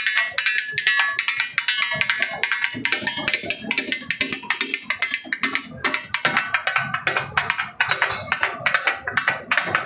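Background music with fast, busy percussion: quick rapid strikes over a steady melodic line.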